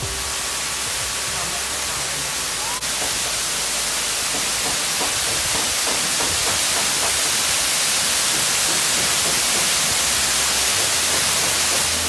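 Water pouring down a man-made waterfall wall and splashing into a pond, a steady rushing hiss.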